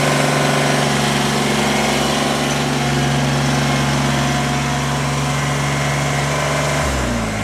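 Engine of a working machine running steadily at a constant speed, then shut off near the end, its pitch sliding down as it winds to a stop.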